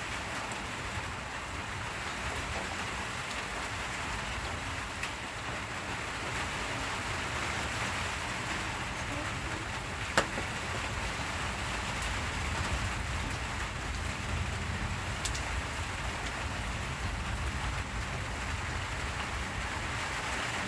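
Steady rain falling, with scattered drop ticks and one sharp click about halfway through.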